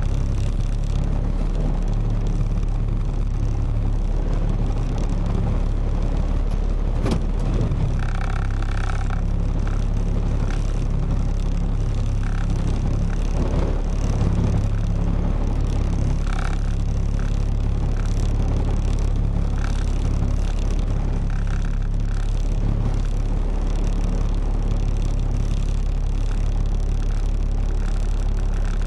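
Box truck's engine running steadily with a low drone, with one short sharp click about seven seconds in.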